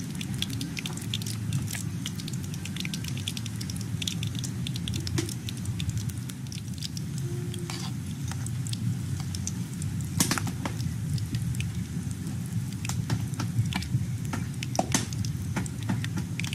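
Battered small fish frying in hot oil in a metal wok over a wood fire: a steady sizzle with scattered sharp crackles and pops, one louder pop about ten seconds in.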